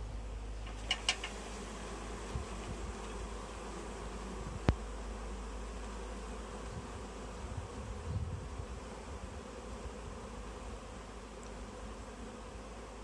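A swarm of honeybees buzzing steadily as it hangs clustered on a tree branch. A few short high chirps come about a second in, and a single sharp click near the middle.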